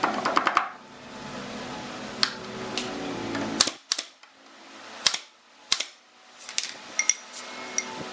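Pneumatic brad nailer firing into a wooden brace: a quick run of sharp shots at the start, then single shots every half second to a second. A steady hum underneath drops out about four seconds in.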